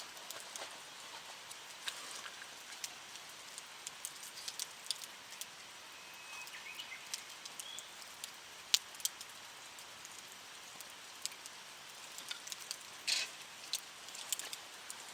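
Wood fire crackling in a campfire pit: irregular sharp pops and ticks over a low steady hiss, with one louder pop a little under nine seconds in.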